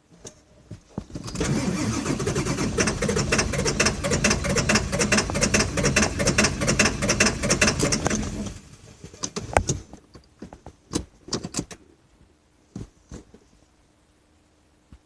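The 2000 Ford F550's 7.3 L Power Stroke V8 diesel being cranked by the starter for about seven seconds, in even pulses, then it stops and the engine is not left running, followed by a few clicks. This is a hard start, which the owner puts down to injectors that need replacing.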